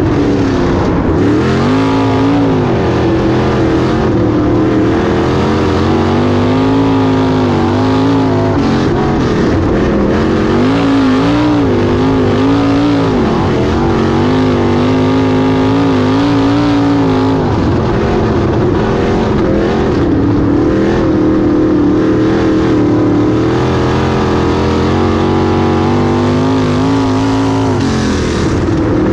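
Wingless 410 sprint car's 410-cubic-inch V8 heard from on board at racing speed on a dirt oval, its pitch rising and falling several times as it laps the track.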